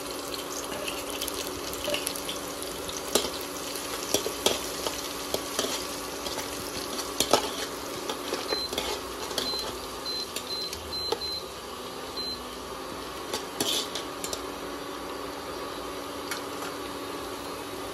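Grated ginger, green chillies and cumin sizzling in hot mustard oil in a kadhai, with a metal spoon clicking and scraping against the pan as it is stirred. About halfway through comes a string of short high beeps from the induction cooktop's controls.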